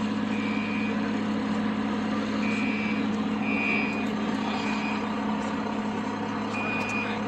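Building fire alarm sounding in a temporal-three pattern: three short high beeps about a second apart, a pause, then three more. A steady low hum runs underneath.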